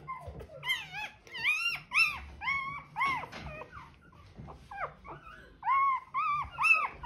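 Newborn German Shorthaired Pointer puppy crying: about a dozen short, high-pitched cries, each rising then falling in pitch, in two bunches with a pause around the middle.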